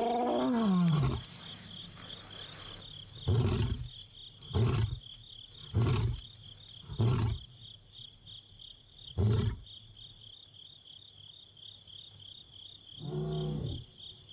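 Male lion roaring: one long roar falling in pitch, then a series of short grunting roars about a second apart, with two more near the end. This is a lion's long-distance contact call to find a companion. Insects trill steadily throughout.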